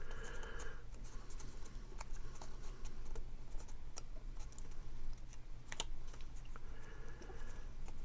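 Card stock being handled and folded by hand: scattered light taps, scrapes and rustles of paper, over a steady low hum.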